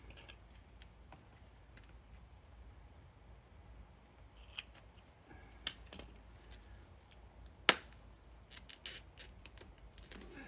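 Sparse clicks and light taps from handling and fitting a muffler repair wrap around a bolt hole. One sharp click about three-quarters through is the loudest, followed by a patter of small ticks near the end.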